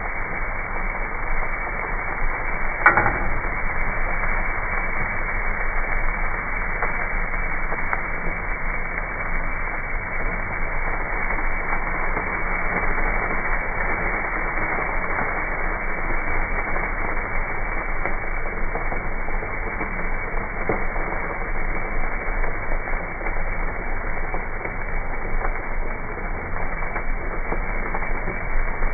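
Steady sizzle and crackle of marinated fajita steak cooking on a Traeger pellet grill's grate, sounding dull and muffled. A sharp click about three seconds in, from the spatula striking the grate, is the loudest sound.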